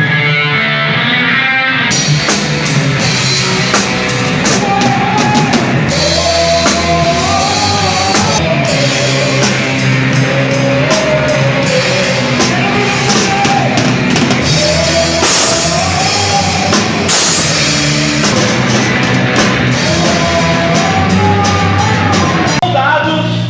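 A live rock band playing loud and heavy, with a full drum kit and cymbals kicking in about two seconds in, over thick bass and guitar and a wavering melody line.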